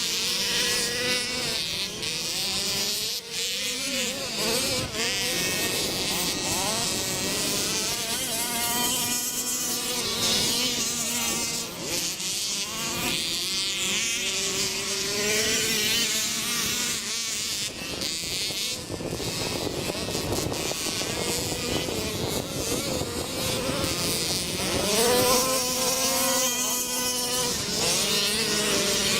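Small engines of several Baja off-road vehicles running around a dirt track at once, with a high buzzing sound. Their pitch rises and falls as they rev and ease off. One revs up loudest about twenty-five seconds in.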